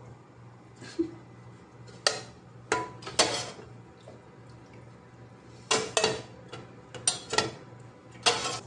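A metal slotted ladle clinks and clatters against a stainless-steel pot as boiled chicken pieces are lifted out of the broth and set down in a pan: a string of short separate knocks, some in quick pairs.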